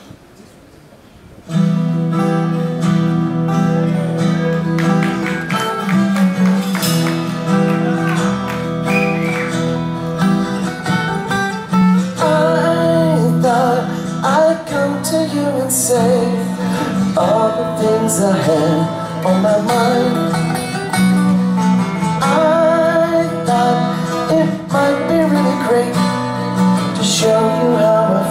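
A live band's song starting about a second and a half in: acoustic and electric guitars playing together, with a man singing from about twelve seconds in.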